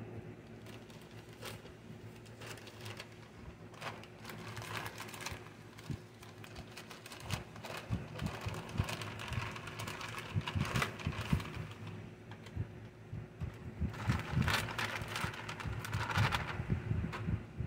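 Plastic poly mailer bag being handled and pulled open, crinkling and rustling in irregular bursts with small clicks, busiest near the end. A steady low hum runs underneath.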